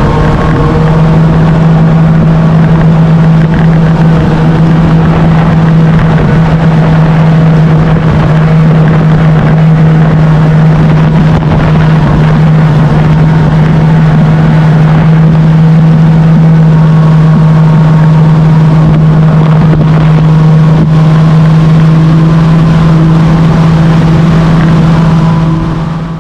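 Bass boat's outboard motor running at a steady, high cruising speed, with wind rushing over the microphone.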